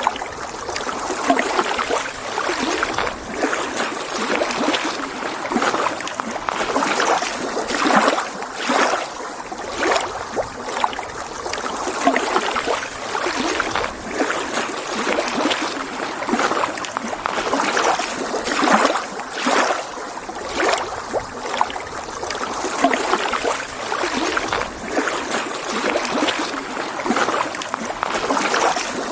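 Small lake waves lapping and splashing against the shore, an irregular run of little splashes every second or two over a steady wash of water.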